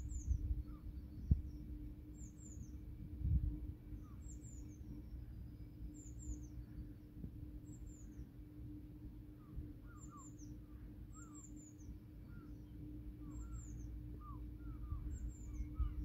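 Small birds calling: short, thin, high chirps that fall in pitch, repeated every second or two, with lower chirps joining in the second half. A low rumble lies beneath.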